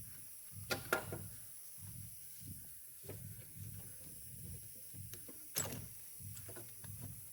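Hand tools working on engine parts: a few sharp metallic clicks and clinks, the loudest about a second in and again past five seconds, over soft low pulses that repeat every half second or so.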